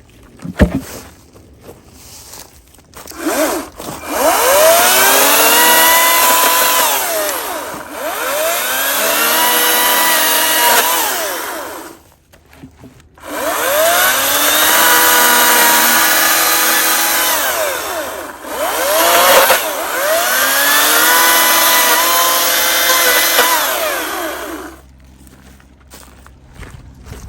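Echo 58V battery chainsaw cutting through a red oak log in four runs of several seconds each, with short pauses between. Each run is an electric motor and chain whine that sweeps up and then dips lower in pitch as the chain bites into the wood.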